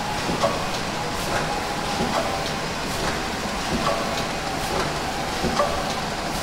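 Yogurt-cup filling and conveyor line running: a steady machine hum with a regular clack about every second as the cups are indexed along.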